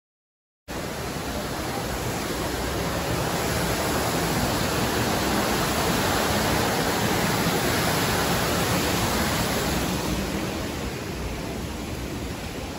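Waterfall splashing down rockwork, a steady rush of falling water. It cuts in abruptly just under a second in, is loudest in the middle and eases off near the end.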